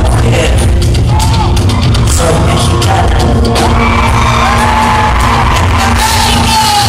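Loud live pop-rock concert music heard from the audience: a full band with sharp drum hits in the first half, and a woman singing long, gliding sung lines over it.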